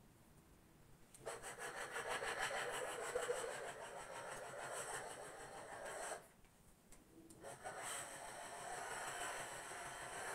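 Upright garment steamer hissing as its steam head is worked over hanging clothes. The hiss starts about a second in, cuts out for about a second just after the middle, then resumes.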